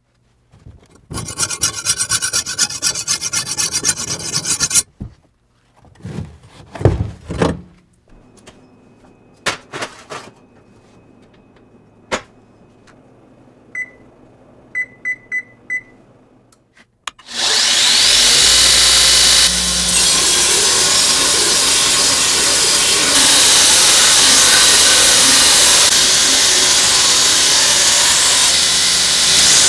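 A file scraping back and forth over hardened spring steel for about four seconds, then scattered knocks and clicks and a short run of high electronic beeps from an oven's control panel. From a little past the middle, a Brodbeck belt grinder runs loud and steady, grinding the leaf-spring steel blade and throwing sparks.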